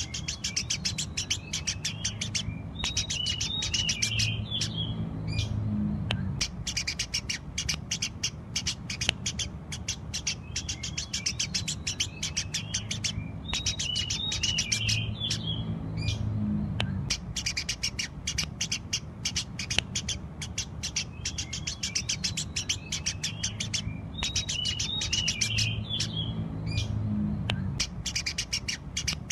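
Eurasian tree sparrows chirping continuously: a dense run of quick, sharp chirps with bursts of twittering notes. The same stretch repeats about every 11 seconds, over a low hum.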